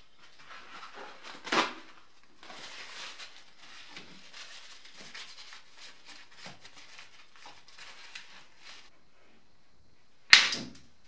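A paper tissue rubbing and wiping over a plywood ring. There is a sharp click about one and a half seconds in, and a loud, sharp snap near the end.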